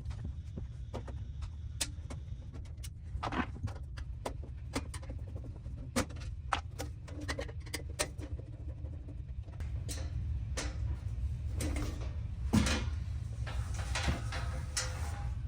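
Scattered light clicks and knocks with some metallic clatter from opening a live residential electrical panel, its cover and screws being handled, over a steady low hum. The knocks come more often and a little louder in the second half.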